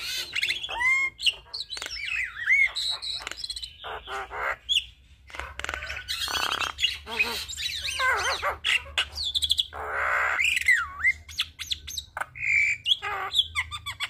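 Javan myna singing a rapid, varied song: clear whistles that glide up and down, mixed with harsh squawking notes and sharp clicks, with only brief pauses.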